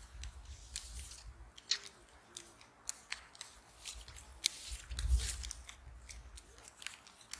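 Playing cards being dealt and handled over a cloth mat: a run of short, sharp, irregular snaps and clicks as cards are flicked down and sorted in the hand, with a brief low rumble about five seconds in.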